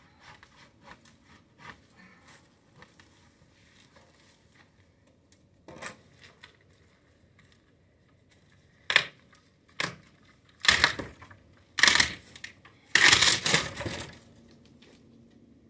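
Faint scraping, then a run of about five loud cracking and crashing rustles over the last six seconds as a partly sawn oleander stem is pulled over and breaks, its woody trunk snapping and its branches thrashing.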